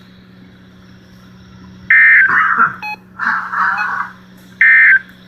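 Weather radio receiver's speaker giving two short, loud electronic beeps about two and a half seconds apart, each followed by a rougher buzzing burst, over a steady low hum.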